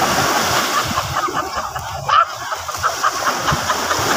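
Waves breaking and washing up a sandy shore, with water splashing as people wade and run through the shallow surf. Short distant calls sound through it, and there is one sudden louder burst about two seconds in.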